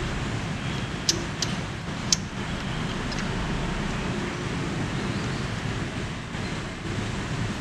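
Steady low background rumble like distant traffic, with a few sharp light clicks in the first three seconds as a scuba regulator's first stage is unscrewed and handled on the tank valve.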